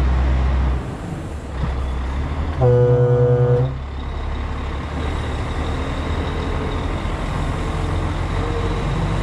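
Truck's diesel engine running, with a horn sounding once for about a second, about three seconds in.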